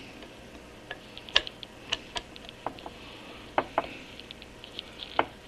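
A scattering of light, irregular metallic clicks and taps as a screwdriver tip works against an Atlas 10F lathe apron's shaft and casting. It is pressing a spring-loaded 3/16 in detent ball down so the cross-feed pull-knob shaft can slide in over it.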